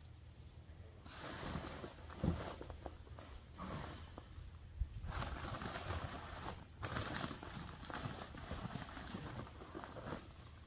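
Dry maple leaves rustling and crackling as they are emptied from a riding mower's grass-catcher into a paper yard-waste bag, in two long bouts with a short pause between them. A single thump about two seconds in.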